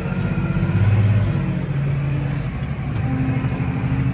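Massey Ferguson tractor's diesel engine running steadily, heard from inside the cab, with a tractor-drawn maize chopper working alongside; the engine note swells briefly about a second in.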